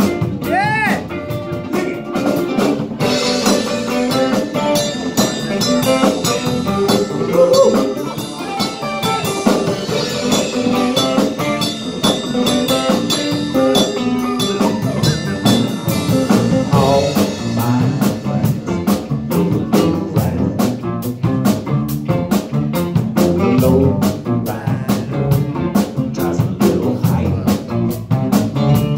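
Live band playing a bluesy number: electric and acoustic guitars over a drum kit keeping a steady beat.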